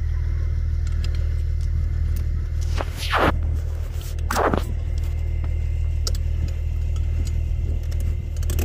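Steel tire chains on a semi-truck wheel being pulled tight and hooked by hand, the links clinking in scattered light clicks, with two short rasping sweeps about three and four and a half seconds in. A steady low rumble runs underneath.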